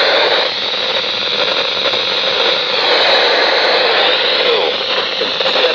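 Weather radio receiver hissing with steady static as the NOAA Weather Radio signal breaks up, the broadcast voice faint beneath the noise.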